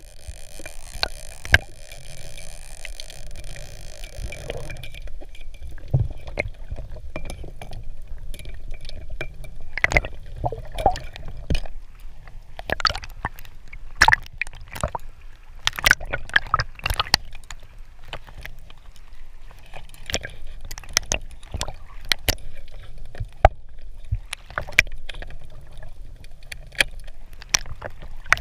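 Underwater sound of a speargun being handled and reloaded: a constant low watery rumble with many scattered sharp clicks and knocks, busiest in the middle, as the rubber bands are stretched and the wishbone and shaft knock together. A steady hiss runs for about the first five seconds and then stops.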